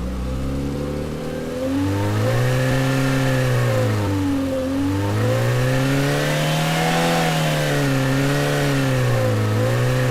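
Car engine sound played back through the AudioMotors engine-sound plugin, its revs driven up and down by remote control: the pitch rises about two seconds in, dips near the middle, climbs to its highest about seven seconds in, then dips and rises again before falling near the end.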